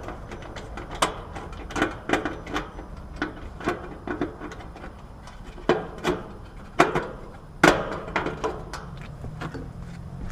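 Irregular sharp clicks, taps and knocks of hand work on a capacitor and its wiring, about a dozen in all, the loudest around seven and eight seconds in, over a steady low rumble.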